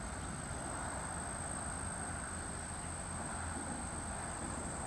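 Steady outdoor field ambience: a continuous high-pitched whine over a low rumble and even hiss.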